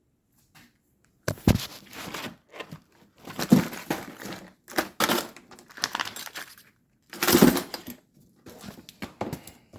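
Irregular bursts of rustling, crinkling and clattering from handling loose material and small parts, broken by abrupt silent gaps.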